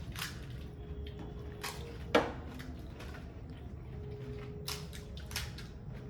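People eating panipuri fast: crisp puri shells cracking between the teeth and wet, squishy chewing of the water-filled shells, with scattered crunches and one sharp crack about two seconds in, over a steady low hum.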